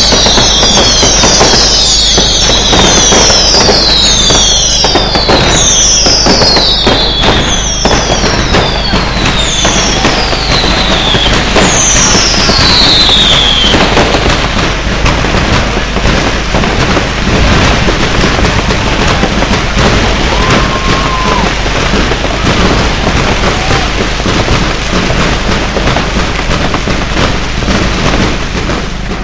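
Dense fireworks barrage: continuous crackling and bangs. Through the first half, repeated high whistles falling in pitch ride over the crackle. They stop about halfway through, and the crackling carries on to the end.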